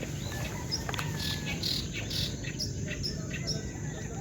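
Birds chirping in short scattered calls over a steady high insect drone, with a constant low rumble beneath.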